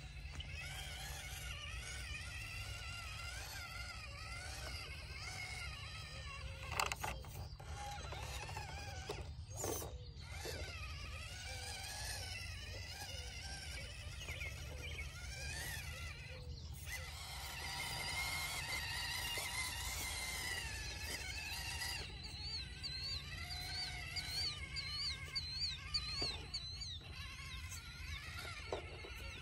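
Small RC crawler's electric motor and gears whining, the pitch rising and falling as the throttle is worked, with a few sharp clicks and knocks as it climbs over rock. Birds chirp in the background, with a quick repeated call near the end.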